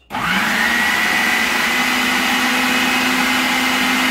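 Electric food processor switched on, its motor rising quickly in pitch as it comes up to speed and then running steadily with a whine, pureeing hot peppers and lemon in apple juice.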